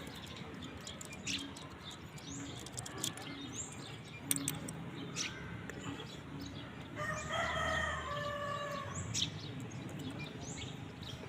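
A rooster crows once, a call of about two seconds starting some seven seconds in, with faint small clicks and short high chirps around it.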